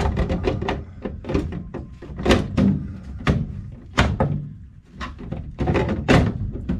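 A string of irregular knocks and clunks as a plastic condensate pump and its PVC drain pipe are handled and fitted together on the side of a furnace.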